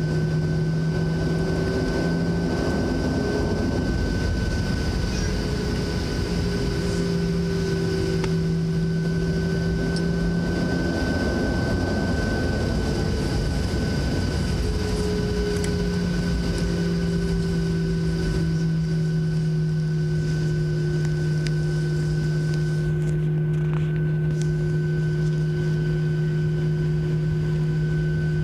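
Boeing 737-700's CFM56-7B jet engines at low power during taxi, heard inside the cabin as a steady drone over a rush of air. A few steady humming tones run through it; they shift slightly up and down in pitch for the first part, then hold level.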